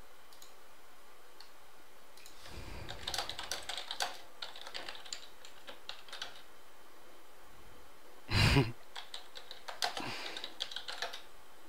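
Typing on a computer keyboard in two short flurries of key clicks, with one louder thump a little past the middle.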